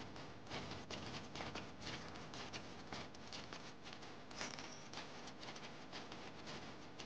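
Footsteps of a group walking on stone paving: many light, irregular steps and clicks overlapping, with no steady beat.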